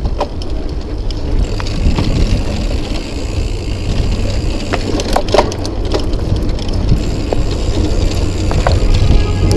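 Mountain bike riding fast down a dirt singletrack: a steady rumble of wind on the microphone and tyres rolling over dirt, with scattered clicks and rattles from the bike over bumps.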